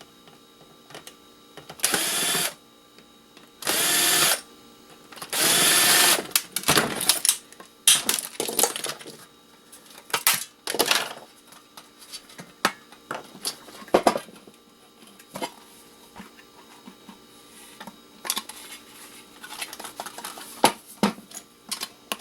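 A cordless drill-driver run in three short bursts in the first six seconds, each winding up and stopping, backing screws out of an electric kettle. After that, a long run of scattered clicks, cracks and knocks as the kettle's plastic housing is pried and broken away from its stainless steel body.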